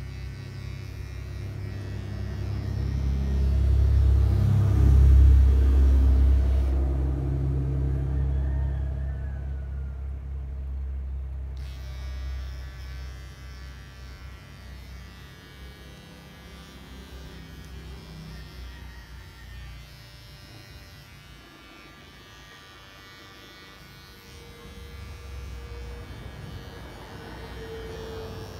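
Electric dog grooming clippers running with a steady buzz. A loud low rumble swells and fades in the first third, peaking about five seconds in.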